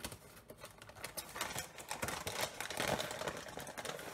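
Plastic flour bag crinkling and rustling while a metal measuring cup is dug into it to scoop flour: a dense run of small crackles, louder in the middle.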